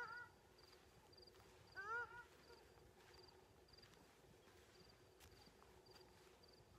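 Faint animal calls in the open: a short honk-like call that rises then falls, once at the start and again about two seconds in, over a steady series of faint high pips about twice a second.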